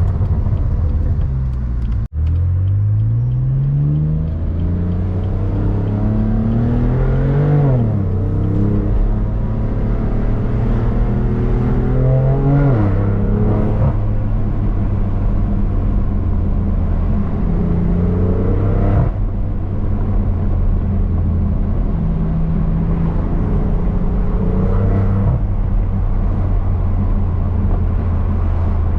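BMW M3 CS's twin-turbo inline-six, heard through an AWE SwitchPath exhaust, pulling hard: the engine note climbs through a gear, drops at an upshift about eight seconds in, climbs again and drops at a second upshift near thirteen seconds, then settles to a steady cruise.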